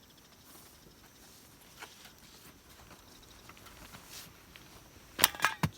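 Faint background with scattered soft ticks, then three or four sharp clicks in quick succession near the end.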